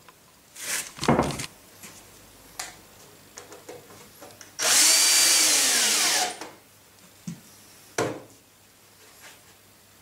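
A power drill runs steadily for about a second and a half, most likely driving a screw while the box is assembled, and its pitch drops as it winds down. Short knocks and clunks from handling the work come before it and again near the end.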